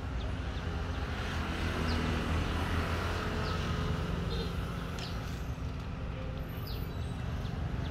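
Steady low rumble of road traffic, with a few faint light ticks.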